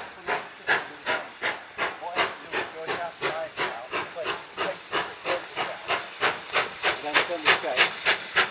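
GWR 4-6-0 steam locomotive working hard as it pulls its train away, its exhaust beating in a steady rhythm of sharp chuffs, about two and a half a second, quickening slightly near the end.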